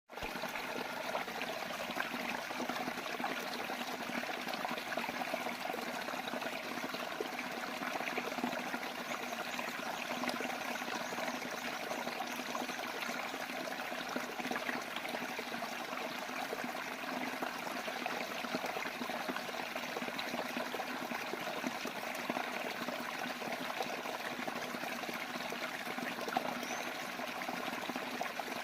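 Water flowing steadily without a break.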